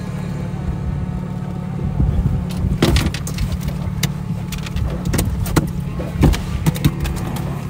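Boat motor running steadily as the boat trolls. From about two and a half seconds in, there are irregular knocks and a metallic clatter as fishing gear on the boat is handled.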